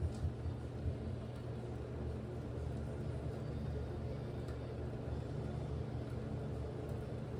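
Aircool Cimarron ceiling fan running: a steady low motor hum with the whoosh of moving air, and a few light knocks in the first second.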